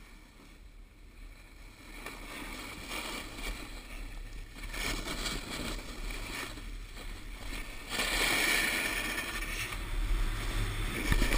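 Snowboard edges sliding and scraping on hard-packed halfpipe snow, with louder scraping surges at the turns on the walls. The sound grows louder as the ride picks up speed, over a low rumble of wind on the microphone.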